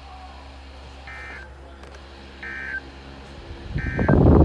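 Weather radio playing the EAS/SAME digital data bursts, typical of the end-of-message code: three short buzzy chirps about a second apart. Near the end comes a loud burst of noise, louder than the chirps.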